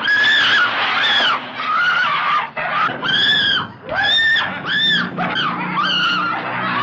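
A string of short, high-pitched screams, about one a second, each rising and falling in pitch.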